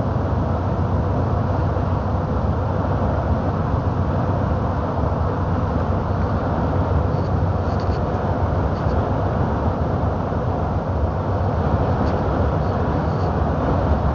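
Steady engine and road noise heard inside a truck cab while it is driving, with a deep low drone and an even rush, and a few faint light ticks now and then.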